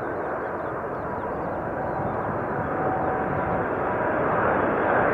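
Airbus A380 airliner on final approach, gear down, its four jet engines making a steady rushing hum with a faint whine that grows louder as it comes closer.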